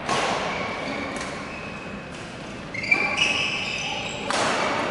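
Badminton rally: racket strikes on the shuttlecock, ringing in the hall, near the start and about four seconds in, with shoe squeaks on the court floor around three seconds in.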